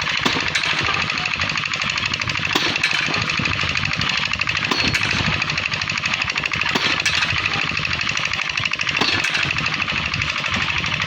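Percussive power tool hammering rapidly and continuously, like a jackhammer, with a few sharper knocks.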